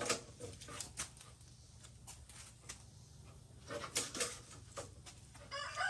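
A few light clicks and knocks, then a rooster starts crowing near the end, one long pitched call.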